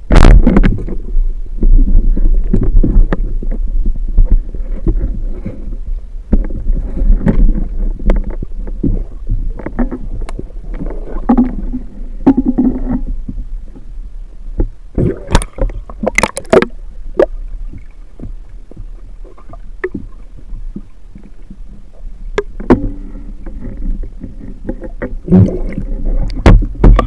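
Underwater sound through an action camera's housing: a muffled, continuous rumble and sloshing of water, broken by many knocks and clicks from handling the speargun and the speared fish, with a cluster of sharp clicks a little past halfway.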